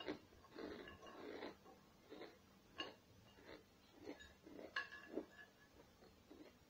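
Quiet close-up eating sounds: irregular chewing and mouth noises with a few sharp clicks or crunches.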